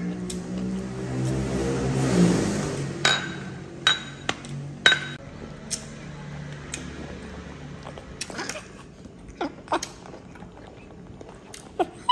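Tableware clinking: chopsticks and dishes knocking against ceramic bowls and a glass table, a scattered series of light clinks, some with a brief ringing tone. A low hum swells and fades in the first three seconds.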